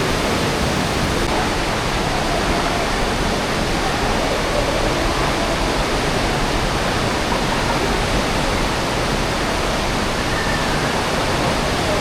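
Aare River rushing through a narrow gorge: a steady, loud wash of fast-flowing water.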